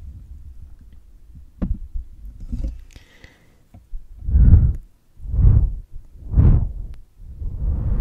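Breath blown straight onto a foam-covered microphone, heard as deep wind rumble on the mic. After a few seconds of faint rumble come three strong puffs about half a second each, then a longer steady blow from about seven seconds in.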